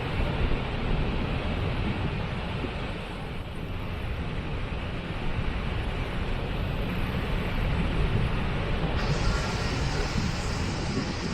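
Waterfall: steady rushing water with a deep rumble underneath. A brighter hiss joins about nine seconds in.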